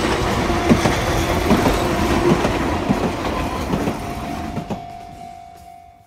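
Enoden tram rolling over a level crossing, its wheels clacking over rail joints several times, with the crossing's warning bell ringing as a steady tone. The sound fades out near the end.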